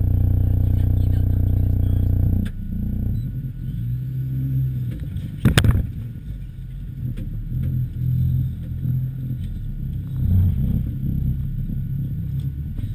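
VW T3 Syncro van heard from inside the cabin while driving slowly over a rough forest track: a steady engine drone gives way, about two and a half seconds in, to an uneven low rumble with small rattles. A single sharp knock, the loudest sound, comes about halfway through as the van jolts over the rough ground.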